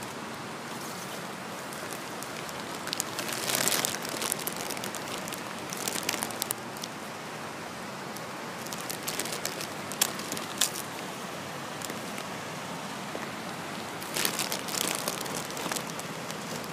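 Steady watery hiss across flooded bayou, broken by several short crackling rustles, the sharpest about ten seconds in.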